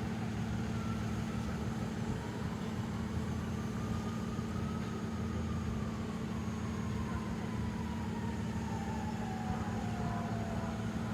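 Steady low rumble of motor vehicle engines and traffic, with a faint thin tone that slowly rises and then slides down in pitch over several seconds.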